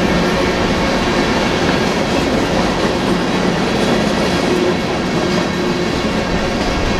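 Freight train cars rolling steadily past, a loud, continuous rumble with the steel wheels clacking over the track.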